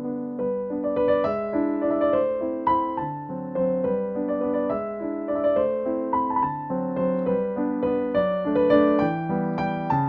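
Background piano music: a steady stream of struck notes, a melody over a lower accompaniment.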